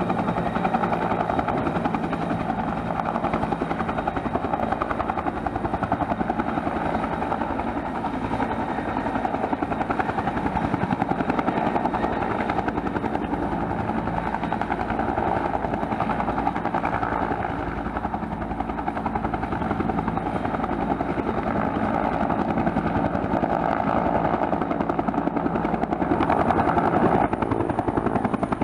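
Bell 212 helicopter running, its twin turboshaft engines and two-bladed main rotor making a steady, even sound with a fast pulsing beat and only slight swells in loudness.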